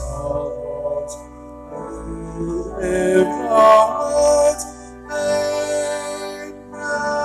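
A hymn sung by a few voices to organ accompaniment, the words drawn out over slow held notes.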